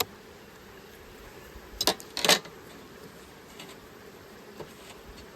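A wooden beehive box set down on top of another, knocking and scraping twice about two seconds in, over the faint hum of bees.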